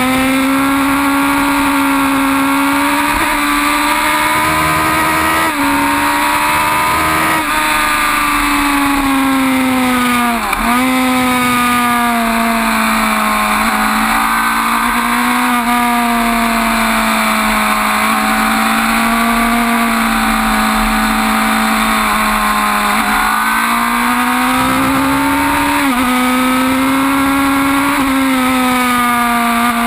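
Suzuki GSX-R 1000 K5's inline-four engine running hard at road speed. Its note rises and falls with the throttle, with a sharp dip and recovery about ten seconds in and another step near the end. Wind noise rushes over the microphone.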